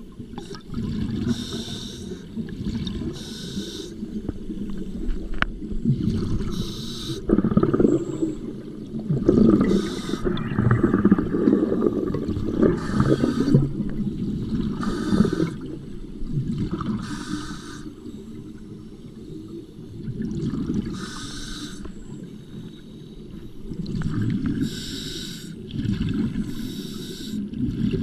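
Scuba diver breathing through a regulator underwater: a short hiss with each inhale, repeating every couple of seconds, and a low bubbling rumble of exhaled air streaming out, heaviest through the middle.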